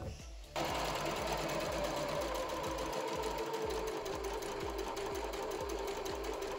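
Aldi So Crafty sewing machine stitching a seam through two layers of fabric. It starts up about half a second in and then runs steadily with an even stitching rhythm.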